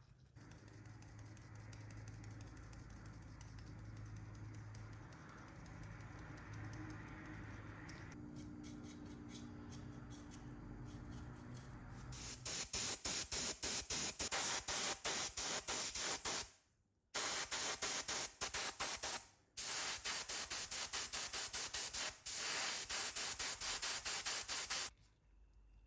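Paint spraying in long hissing passes, broken off briefly twice, after a stretch of low steady hum.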